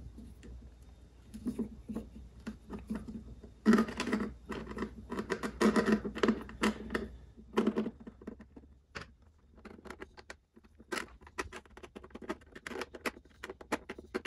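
A screwdriver scraping and clicking against the spring clip that holds the filler plug on a 1955 AJS primary chaincase: a run of small metallic scratches and ticks, busiest from about four to seven seconds in, then sparser.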